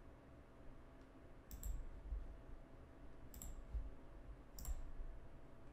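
Faint computer mouse clicks, about three spaced a second or so apart, some doubled, as form fields are placed with the mouse.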